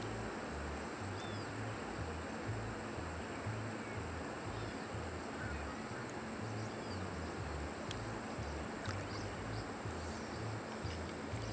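River water rushing steadily over a stony bed: a constant hiss-like noise. A steady high whine sits above it, with a few faint short chirps.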